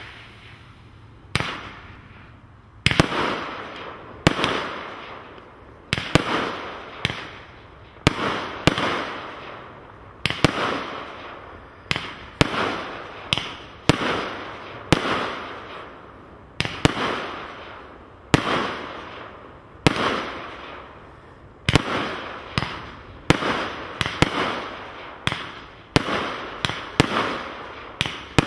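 Consumer firework cake firing a rapid volley of aerial shots, about one bang a second, each fading out in a short noisy tail. A single shot opens it, and the steady run of shots starts about three seconds later.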